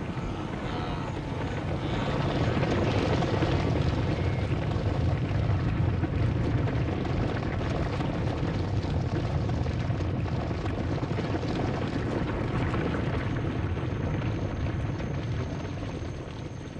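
A wildebeest herd stampeding: a dense rumble of many hooves that builds over the first two seconds and fades near the end.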